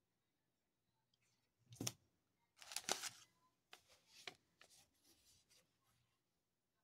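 Paper and plastic packaging crinkling and rustling as cards and a bubble-wrapped package in tissue paper are handled. A short crisp rustle comes nearly two seconds in, then a louder crinkle, then softer scattered rustling over the next few seconds.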